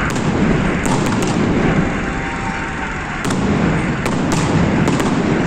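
Fireworks display: continuous low booming of shell bursts, with about eight sharp cracks scattered through it.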